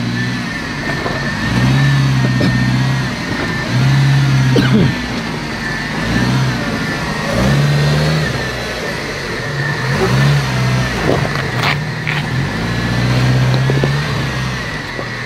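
Off-road 4x4's engine revving in repeated bursts a couple of seconds apart while crawling over rocks, over a steady high whine.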